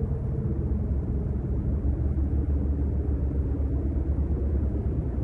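A low, steady rumbling drone with faint held tones, the kind of dark ambient bed laid under a horror film's opening shots.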